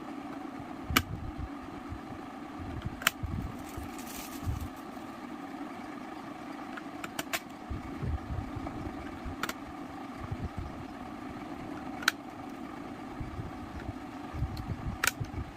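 Sharp plastic clicks, about seven spread irregularly, as MX-style mechanical keyboard switches are pressed and snapped into a keyboard housing, over a steady low hum.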